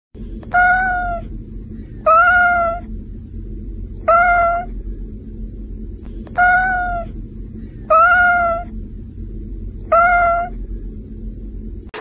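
Cat meowing six times, about once every two seconds, each meow a short call of much the same pitch and shape. A steady low rumble runs underneath.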